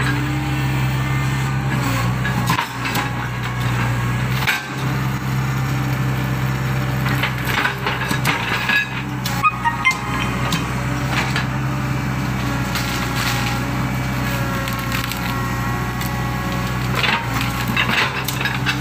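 Excavator's diesel engine running steadily under load, with irregular sharp cracks and crunches throughout as the machine works its way across a river or ditch.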